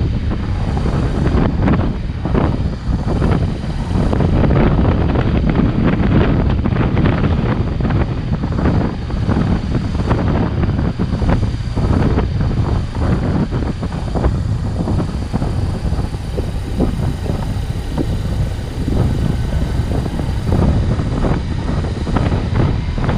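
Wind buffeting the microphone of a motorcycle at road speed, a steady gusty rush with the bike's engine and tyre noise underneath.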